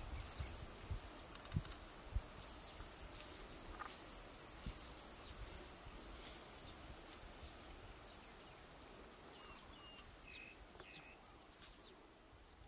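Rural field ambience: insects trilling steadily at a high pitch, with a few low thumps in the first couple of seconds and a few short high chirps about ten seconds in, the whole fading toward the end.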